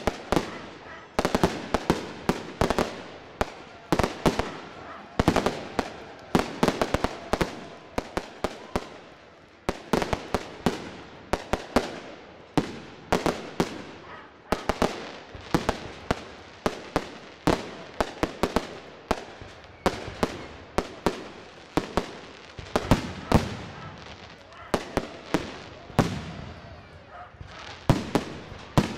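Fireworks display: aerial shells bursting one after another in quick, irregular succession, many sharp bangs, some in rapid clusters.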